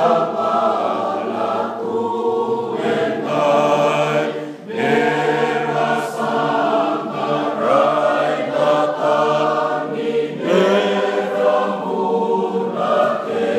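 A group of voices singing a hymn together in Fijian, in several parts, with a brief break between phrases about five seconds in.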